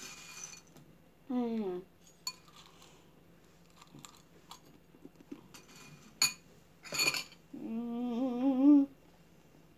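A metal spoon clinks against a breakfast bowl several times while eating. Between the clinks a voice makes a short falling sound early on, and near the end there is a wavering hum lasting about a second.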